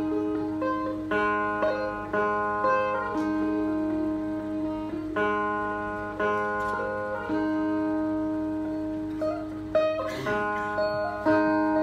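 Sape, the wooden Bornean boat lute, played solo: a melody of plucked, ringing notes over a steady low drone.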